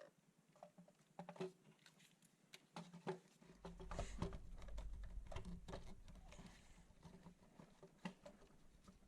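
Faint, scattered small clicks and knocks, like parts and tools being handled, with a low rumble that sets in about three and a half seconds in and fades away.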